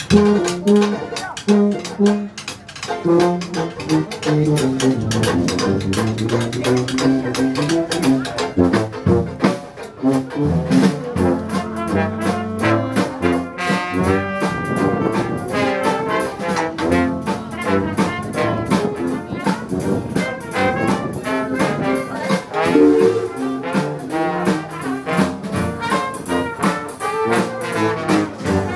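Dixieland jazz band playing live, with trombone and trumpet carrying the lines over a bass.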